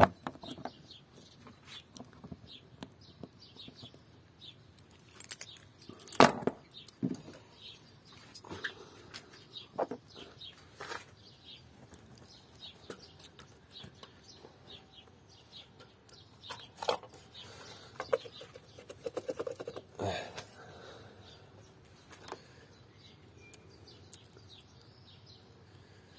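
Sharp clicks and knocks from hands working on the ignition coil rail on top of a Peugeot 407's engine, spaced seconds apart, with the loudest about six seconds in. Birds chirp throughout, and the engine is not running.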